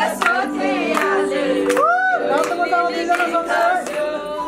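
A group of voices singing together, with little or no instrumental backing.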